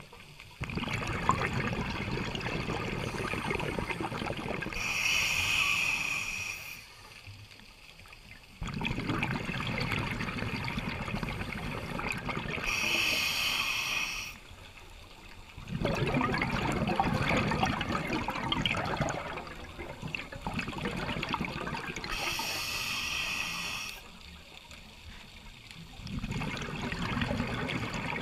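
Scuba breathing through a regulator, heard underwater. Three times over there is a hissing inhale, a brief lull, and then several seconds of gurgling exhaled bubbles.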